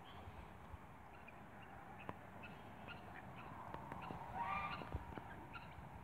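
Mute swan giving one short nasal honk about four and a half seconds in, with faint high chirps scattered in the background.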